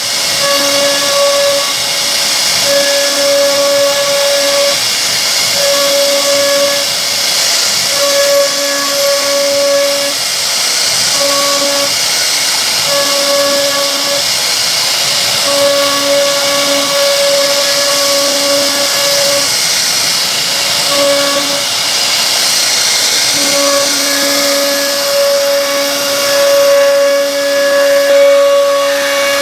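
CNC wood router machining a solid wood door: a steady, loud hiss of the spindle cutting, with a pitched hum that keeps switching on and off in short stretches as the machine moves, held without a break near the end.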